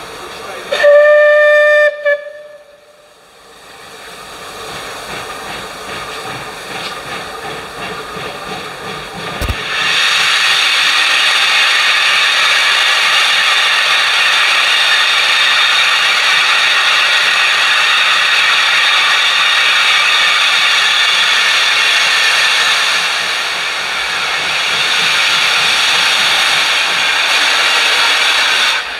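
Bulleid Pacific steam locomotive 'Braunton' sounds its whistle once, for about a second. About ten seconds in, its cylinder drain cocks open and steam hisses loudly and steadily as the locomotive starts away.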